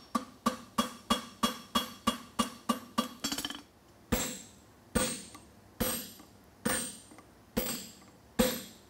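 Hammer blows on red-hot steel on a farrier's anvil, each strike ringing the anvil: a quick run of about four light blows a second, then, from about three and a half seconds in, slower, heavier blows less than a second apart on a handled top tool held on the hot bar.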